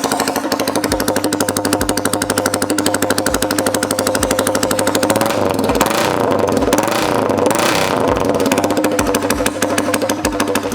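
Yamaha R15S single-cylinder engine running with its exhaust silencer removed, so it fires straight out of the open header pipe with a rapid, harsh popping. The note wavers around the middle, then settles again.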